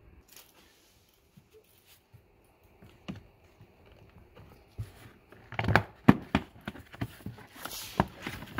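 Plastic lower A-pillar trim panel of a Tesla Model 3 being handled and pried at its clips: a single click, then a run of sharp plastic clicks and knocks in the second half.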